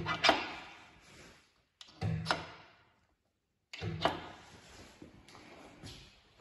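2013 Maja EVM 4006 skinning machine (0.75 kW, 6 bar) cycling briefly each time its push-button is pressed: three short bursts about two seconds apart. Each is a sharp mechanical clunk followed by a noise that dies away within about a second.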